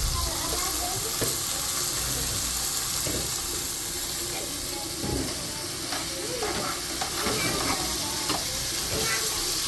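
Food frying in hot oil in a pan, a steady sizzle with occasional clicks and scrapes of a utensil stirring.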